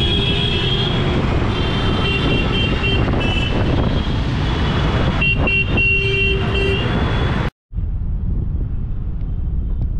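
Busy road traffic with car horns honking, several held toots a few seconds apart. The sound cuts off sharply about three-quarters of the way through and picks up again as a duller, steady traffic rumble.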